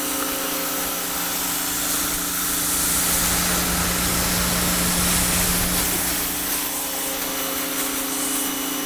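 Pressure washer running steadily: the motor and pump hum under the hiss of the water jet spraying.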